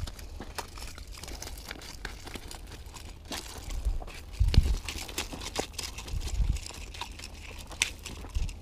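Crinkling, rustling handling noise as a sweatshirt sleeve moves across close to the microphone while a fishing line is hauled in by hand, with scattered crunches of gravel. A sharp slap near the end as the fish lands on the gravel. A low steady rumble underneath.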